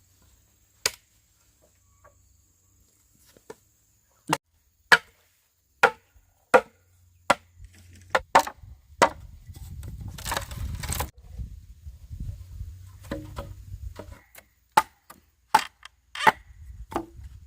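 Bamboo being chopped with a blade: about a dozen sharp, single strikes at irregular intervals, with a stretch of rustling about midway.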